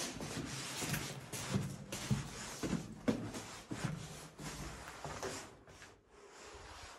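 Footsteps scuffing across a dusty, gritty cellar floor at a walking pace, with a small room's echo. They get quieter near the end.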